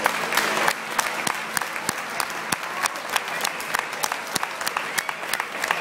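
Audience applauding, with many single claps standing out over the general clapping; the last notes of the band die away in the first moment.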